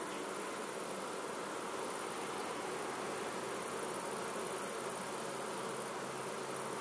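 A colony of honeybees buzzing steadily around their wooden hives.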